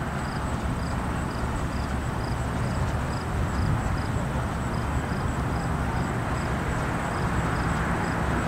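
Steady low rumble of an Amtrak diesel locomotive's engine running, with a faint high chirp repeating about twice a second over it.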